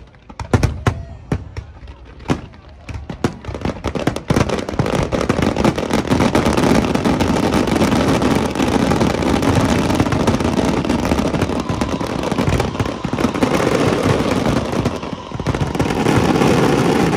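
Aerial fireworks display: separate sharp bangs of shells bursting over the first few seconds, then, from about four seconds in, a dense, loud barrage of many bursts and crackling running together.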